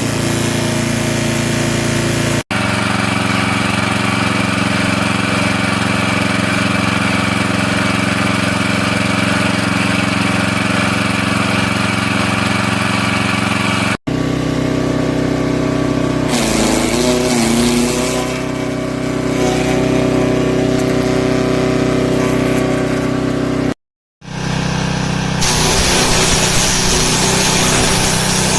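Forest Master FM6DD wood chipper's 6 hp petrol engine running steadily. Its pitch sags and recovers about halfway through, and the sound breaks off abruptly three times.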